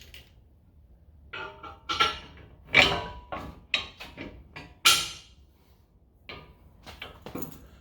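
Metal clanks and knocks from steel winch-mount bracket parts and bolts being handled and fitted, a quick run of sharp strikes, some with a short ring, loudest twice in the middle, then a few lighter knocks near the end.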